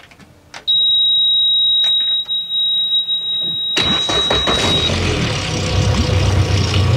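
Boat outboard motor being started: a steady high-pitched warning beep sounds as the ignition is switched on, then the engine cranks and catches about four seconds in and runs at idle, the beep stopping a second after it fires.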